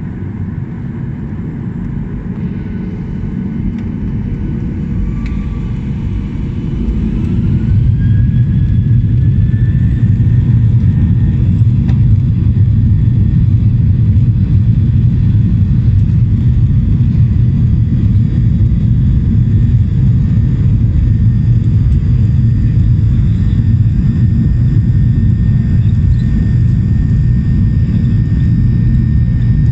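Boeing 737-800's CFM56-7B turbofan engines spooling up for takeoff: a whine rises in pitch while the sound grows louder over the first several seconds. It then settles into a loud, steady low rumble with a level whine on top at takeoff thrust.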